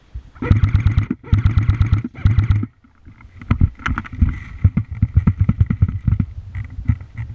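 Three short bursts of rapid full-auto fire from an airsoft gun, each a fast even rattle of shots, followed by irregular knocks and clatter.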